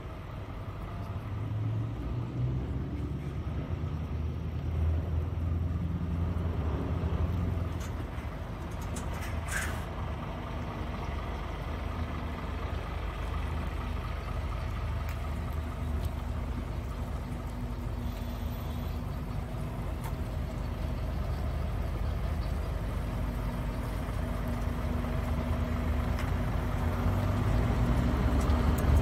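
Truck diesel engine running at low speed as the truck manoeuvres slowly, a steady low drone that grows louder near the end as it comes close. A short hiss of air about ten seconds in.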